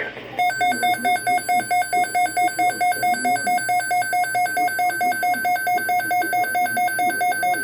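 Weather alert radio receiver sounding its alarm: a rapid electronic beeping, about five beeps a second, that signals an incoming weather alert.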